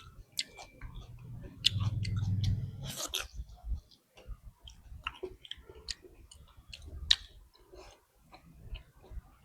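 Close-up chewing of a mouthful of pork and rice: irregular wet mouth clicks and smacks, with a louder stretch about two seconds in that ends in a sharp click, and another sharp click near the end.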